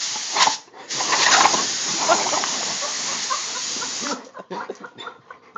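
Compressed air hissing from an air compressor's hose nozzle: a short blast, then a steady blast of about three seconds that cuts off sharply. A dog's short sounds come faintly over the hiss.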